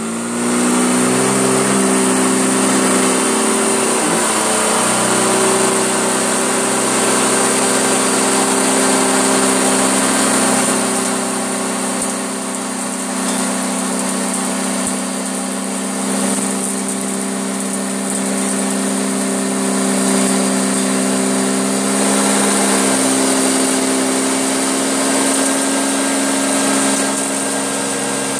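Hoover Junior upright bagged vacuum cleaner switched on, its motor coming up to speed in the first second, then running steadily as it sucks up a mess of dirt and dog hair. Its motor note shifts slightly a couple of times.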